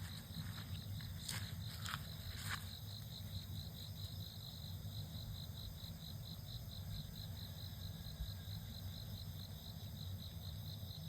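An insect chirping outdoors in a steady, even pulse, one high note repeated several times a second without a break. Three short, sharp sounds come between about one and two and a half seconds in.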